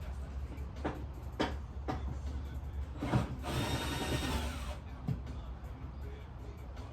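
Tool work on a car: a few sharp metallic knocks, then a power tool runs in one burst of about a second.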